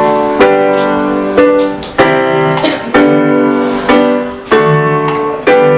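Keyboard chords in a piano sound, struck about once a second and left to ring and fade between strikes.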